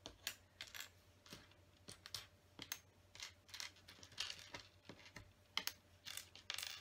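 Small flat plastic LEGO tiles clicking and clattering as they are picked up and set down on a tabletop: an irregular run of light clicks, a few a second.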